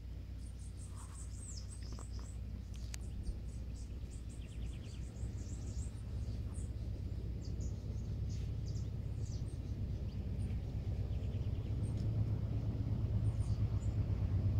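Many short, high-pitched chirps of small birds, thickest in the first ten seconds, with a couple of brief rapid trills, over a steady low rumble that grows louder toward the end.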